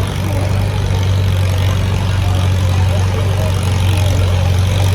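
Farm tractor engine running at a steady, unchanging speed during a tractor pull, a loud, constant low-pitched sound.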